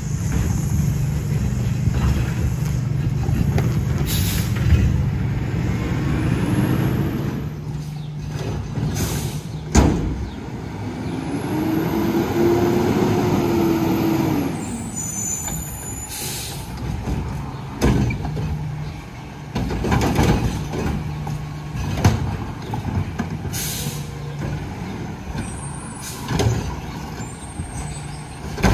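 Front-loader garbage truck with a Curotto-Can arm at work: the diesel engine runs steadily and revs up and back down once near the middle, with several short air-brake hisses and sharp metal clanks.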